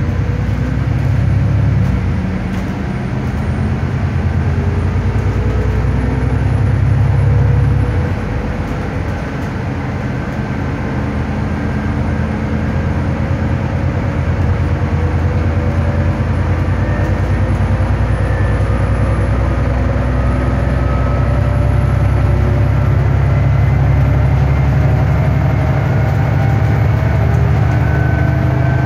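Stagecoach Gold bus engine and drivetrain heard from inside the passenger cabin while under way: a heavy, steady low rumble with a whine that slowly rises in pitch as the bus picks up speed. The engine note dips briefly about eight seconds in, then builds again.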